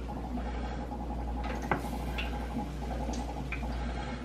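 Thick waffle batter scooped from a glass bowl with a metal ladle and poured onto a waffle iron: soft wet squishing and dripping, with one sharp tap about one and a half seconds in, over a steady low hum.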